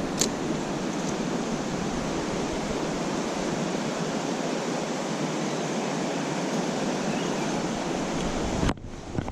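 Mountain stream rushing steadily over rocks, a full, even water noise with one short click just after the start. It cuts off abruptly near the end.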